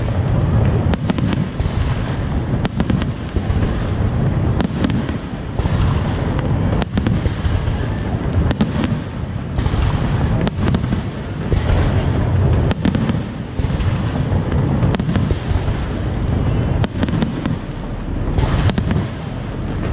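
Aerial fireworks display going off continuously: many sharp bangs in quick succession over a steady low rumble, with crackling between them.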